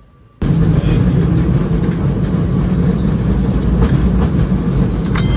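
San Francisco cable car running along the street: a loud, steady low rumble that starts suddenly about half a second in.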